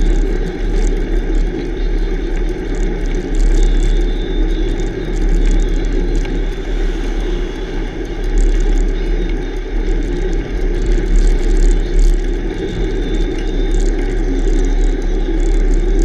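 Steady wind rushing over the microphone of a bicycle-mounted camera, mixed with tyre and road noise from riding a rough highway shoulder. A semi truck passes in the next lane partway through.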